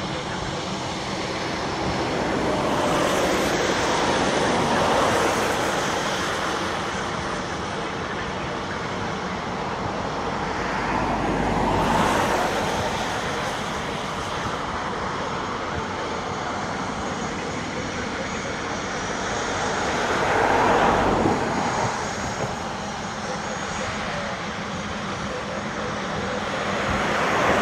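Dassault Falcon 7X business jet taxiing, its three Pratt & Whitney Canada PW307A turbofans running at taxi power: a continuous jet rush with a faint high whistle, rising and falling in loudness several times.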